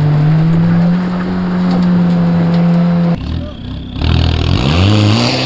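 Car engine revving: the revs climb and hold steady for about three seconds, then drop off suddenly. About a second later they climb again under a loud hiss.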